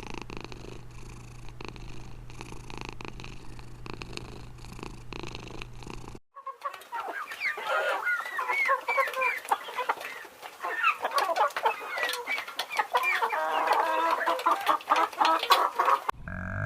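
Several chickens clucking and calling at once, with dense overlapping short calls, after a cut about six seconds in. Before that, a low steady hum.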